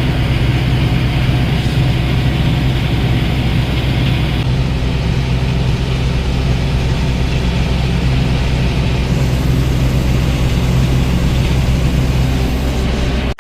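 John Deere 4955 tractor's six-cylinder diesel engine running steadily while pulling a grain cart through the field; a constant low drone.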